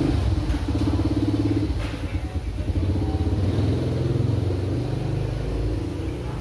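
A motor vehicle engine running with a fast, even throb, loudest early on and slowly easing off towards the end.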